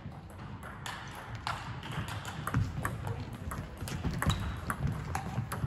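Table tennis rally: the ball clicking sharply off the paddles and bouncing on the table, a hit about every half second, in a reverberant sports hall with fainter clicks from play at other tables.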